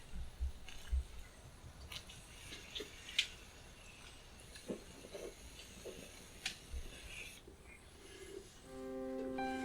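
Scattered faint clicks and light taps over a quiet background, then soft background music with held keyboard-like notes starts near the end.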